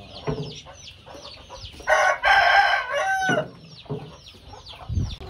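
A rooster crows once, starting about two seconds in and lasting about a second and a half, ending on a falling note. Underneath it many young chicks peep steadily in short, high, falling chirps.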